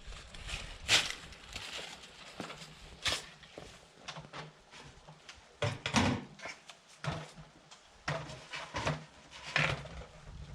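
Irregular knocks, clicks and rustles, with the loudest sharp knocks about one, three, six and nine and a half seconds in; no motor running.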